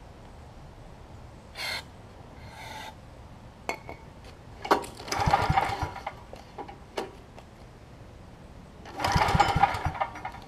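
Two short hisses of carb cleaner being sprayed into a Briggs & Stratton Vanguard generator engine. Then two pulls on its recoil starter, each cranking the engine in a rapid chugging run for a second or so, and the engine does not keep running after either pull.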